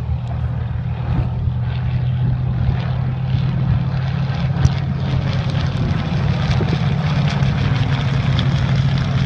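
Avro Anson's twin radial piston engines and propellers droning steadily in a low flypast, growing slightly louder toward the end.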